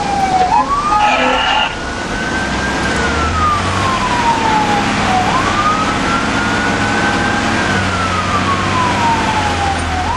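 Fire engine siren wailing, rising and falling slowly about every five seconds, heard from inside the cab over the low hum of the engine. A short louder blast of another horn tone sounds in the first couple of seconds.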